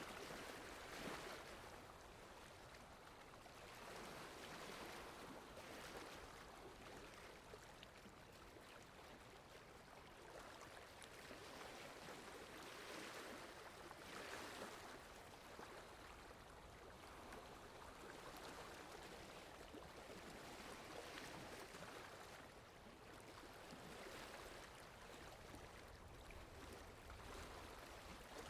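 Water lapping, faint, in soft irregular swells that come and go every second or two, with wind.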